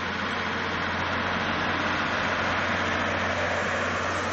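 Heavy truck's engine running steadily as the truck drives past close by.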